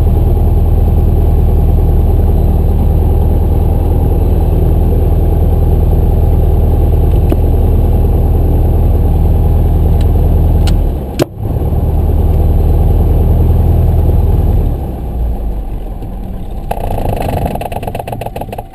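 Piper Archer III's four-cylinder Lycoming engine idling, heard from inside the cockpit, with a sharp click and a brief dip in the engine note about eleven seconds in. About fifteen seconds in the engine is shut down and runs down, the propeller coming to a stop.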